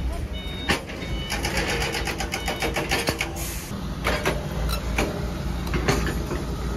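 An engine running with a steady low rumble, overlaid by a rapid run of mechanical clicks, about seven a second, in the first few seconds, and scattered sharp knocks.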